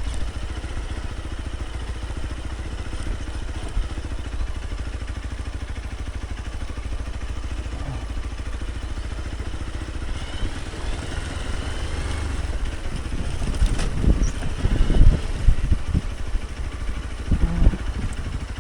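Hero Xpulse 200 Pro's single-cylinder engine running steadily as the bike rides downhill on a rough track, with wind noise. In the last few seconds there are louder irregular thumps and clatter.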